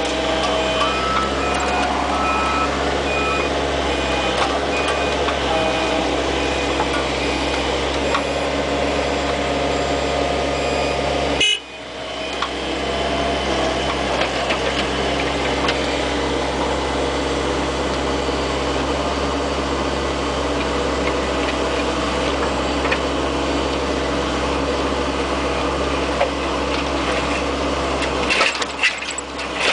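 Bobcat 430 ZHS mini excavator's diesel engine running steadily, with short repeated beeps in the first few seconds. The sound drops out briefly about eleven seconds in, and there are several knocks near the end.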